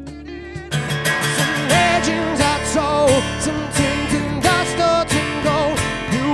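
A live acoustic band plays: strummed acoustic guitars, an electric guitar and a cajon. The playing turns fuller and louder about a second in, with a wavering melody line over the strumming.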